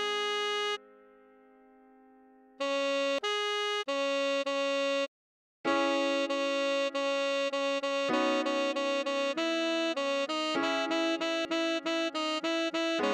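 Tenor saxophone playing a melody. A held high note breaks off about a second in, and after a pause a string of notes starts. They stop briefly around the middle, then carry on as quick repeated notes.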